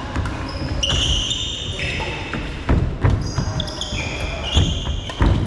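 Badminton play on an indoor court: sports shoes squeaking on the court floor in short high squeals of changing pitch, among thuds of footwork and sharp hits.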